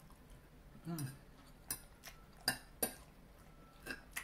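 A metal fork clinking against a dinner plate about five times as it picks up noodles and vegetables. A brief low vocal sound from the eater comes about a second in.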